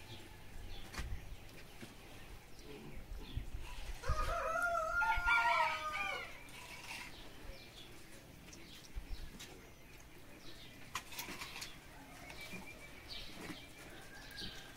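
A rooster crows once, a single arched call of about two seconds starting about four seconds in. A few faint knocks sound around it.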